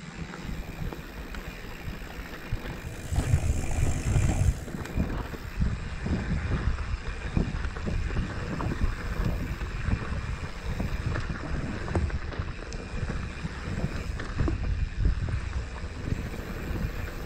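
Mountain bike riding over a rough, rocky dirt trail: tyres rumbling on loose ground and the bike rattling and knocking over bumps, with wind buffeting the microphone. It gets louder about three seconds in for a second or so.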